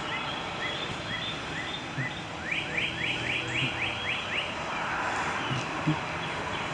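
A songbird singing outdoors: a string of short high chirps, then about two and a half seconds in a quick run of rising notes, several a second, over steady outdoor background noise.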